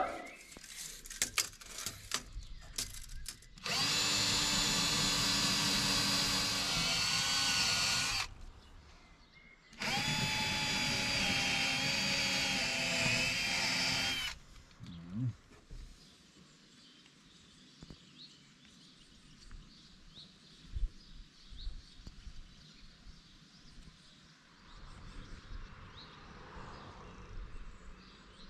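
Bosch cordless drill boring holes up through the boat's hard bimini top, in two steady runs of about four seconds each, a second and a half apart. A few light clicks come before the drilling.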